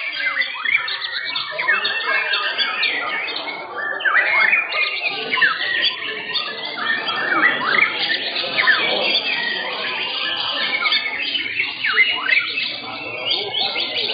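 Several caged white-rumped shamas (murai batu) singing at once: a dense, unbroken tangle of quick rising and falling whistles and chattering phrases.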